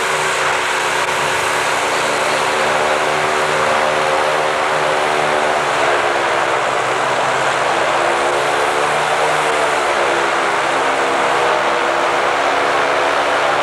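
Engine of a homemade parade-float vehicle running at low speed as it rolls past. Its pitch drifts slowly up and down over a steady background hiss.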